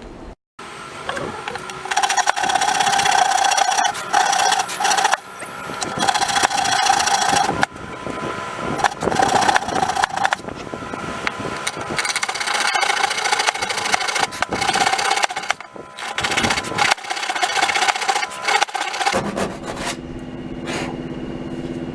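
A saw cutting out the ends of slots in a table saw fence, in repeated bursts of a second or two with short pauses between, each burst carrying a steady tone.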